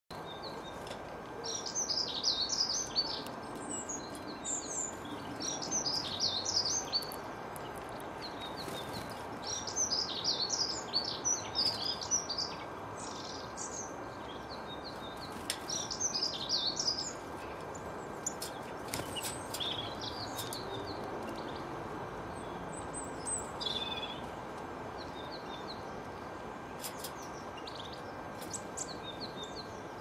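Small songbirds singing in short, bright twittering phrases of a second or two, several in the first half and sparser chirps later, over a steady background hiss.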